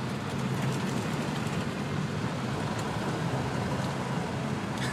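Steady road noise of a truck driving at speed, heard from inside the cab: a constant low engine and tyre drone under an even hiss.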